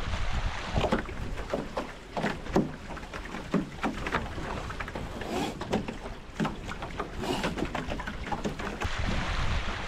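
Sailing catamaran hulls running through choppy lake water: irregular splashes and slaps of water against the hulls over a steady rush of water.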